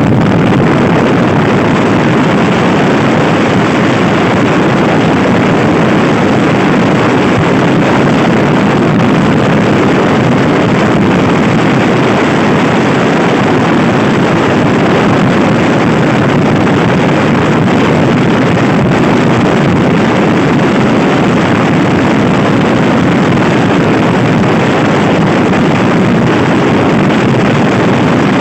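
Loud, steady wind rushing over the microphone of a Honda Scoopy-i scooter riding at speed, with the scooter's engine running underneath.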